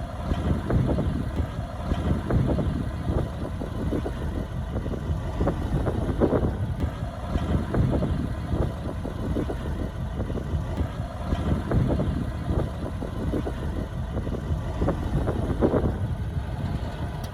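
Heavy diesel construction machinery running steadily with a low rumble, with scattered knocks and clanks through it.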